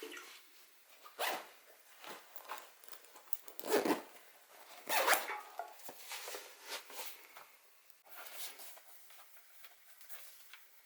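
Irregular rustling and rasping noises, a series of short scratchy strokes with the loudest about four and five seconds in.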